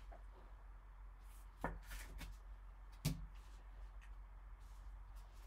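Trading cards handled and set down on a tabletop: a few light taps and rustles, with the two sharpest taps at about a second and a half in and about three seconds in.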